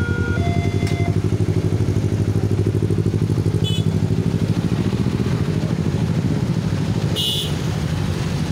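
Motorcycle engines running close by with a rapid, steady throb as a crowd of motorbikes pulls away from a level crossing. The crossing's electronic warning tones stop about a second in. A short horn beep sounds about four seconds in, and a louder one comes about seven seconds in.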